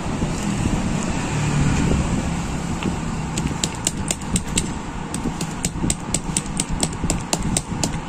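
Fried jengkol (dogfruit) being pounded flat through plastic sheeting on a tiled floor with a small metal tool. Quick sharp taps, about four a second, begin a few seconds in, over a steady low rumble.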